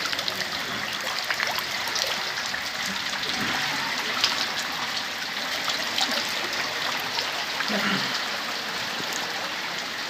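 Heavy rain and running floodwater: a steady rushing hiss with fine pattering through it.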